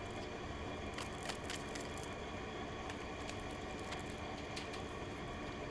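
Room tone: a steady low hum with a few faint, light clicks.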